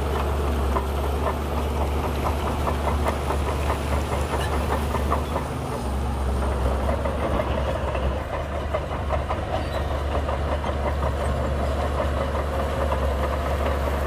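Shantui crawler bulldozer working: its diesel engine runs with a steady low drone under a rapid, continuous metallic clatter of the tracks.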